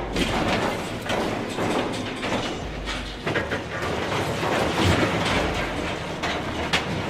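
Heavy machinery clattering and grinding, with repeated sharp knocks over a steady rumble.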